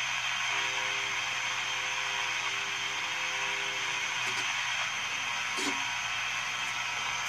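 Hallicrafters S-38 shortwave receiver giving steady static hiss and a low hum from its speaker as the band spread is tuned. A steady low whistle of a signal comes through about half a second in and fades out after about three seconds.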